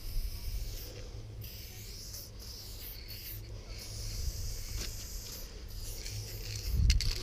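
Kobra Krome 600ml copper chrome aerosol can with a level 1 skinny cap hissing in spray passes, stopping and starting with short breaks between strokes. A thump near the end.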